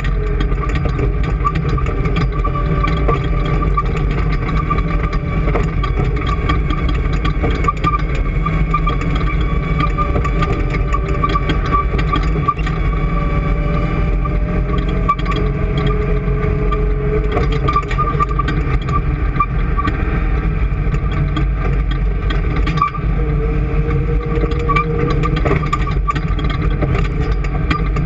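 An engine running steadily at an even speed, a continuous low drone with light ticking over it.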